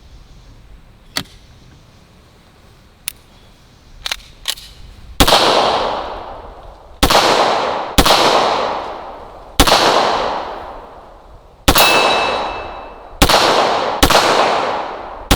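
Walther P38 9mm pistol being fired slowly, about eight single shots a second or two apart, each trailing off in echo. Before the first shot come a few sharp handling clicks.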